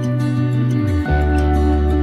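Soft background music with sustained notes over a deep bass line, changing chord about a second in.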